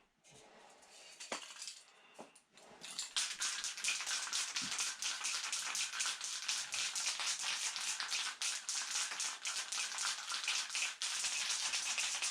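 Aerosol spray paint can hissing steadily from about three seconds in, painting the engine, after a few light clicks and rattles as the can is handled.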